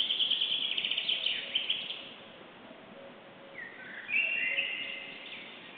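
Wild songbirds singing: a quick run of high notes through the first two seconds, then a second song of short rising whistles from about three and a half seconds in.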